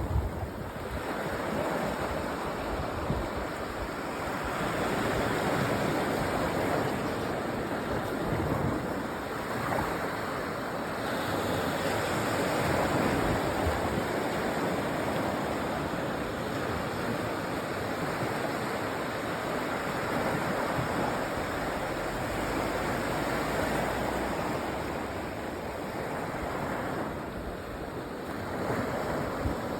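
Sea waves washing onto a sandy beach, a continuous surf wash that swells and eases slowly, with some wind rumble on the microphone.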